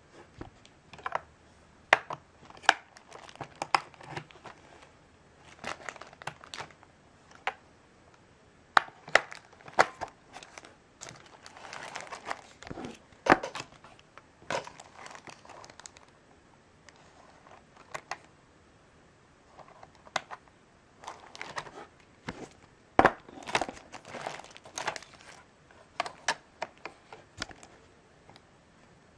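Sharp plastic clicks and knocks as AA batteries are fitted into the Logitech K400 wireless keyboard's battery compartment and the keyboard is handled, with bursts of crinkling from the plastic packaging film and paper around it.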